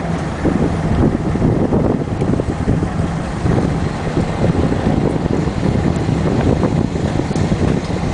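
Ferry's engine running with a steady low hum, under gusty wind buffeting the microphone.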